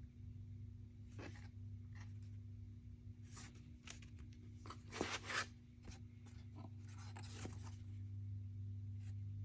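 Rustling and scraping of the kit's plastic wrapping and wooden sheets being handled, in several short strokes, the loudest about five seconds in, over a steady low hum.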